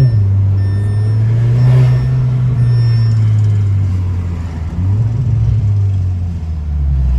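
Tuned Audi's engine and exhaust running under way. The engine note drops sharply right at the start, as at a gear change, then slowly rises and falls, with another step up about five seconds in.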